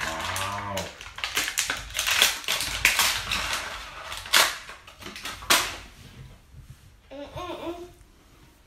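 Crinkly printed plastic wrapper being peeled and torn off a plastic toy surprise ball: a dense run of sharp crackles and clicks that dies away about six seconds in.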